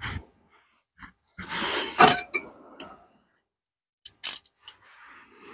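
Metal hand tools being handled: sharp clinks and clicks, a pair of them about four seconds in, with a short noisy rustle about a second and a half in.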